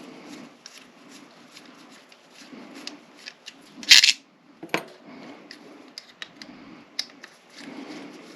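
Lock parts and small metal tools handled on a workbench: scattered light metallic clicks and clinks, with one loud sharp clack about four seconds in and another click just after it.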